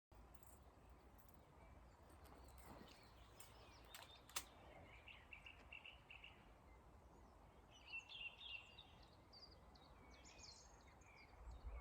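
Faint birdsong: small birds chirping in short phrases over a low outdoor background hiss, with two sharp clicks about four seconds in.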